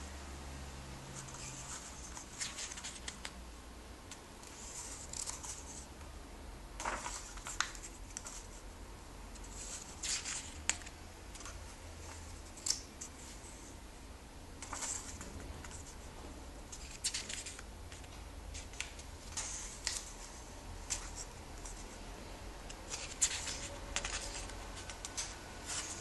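Comic book pages being turned by hand one after another, each turn a short papery rustle and swish, about every two to three seconds.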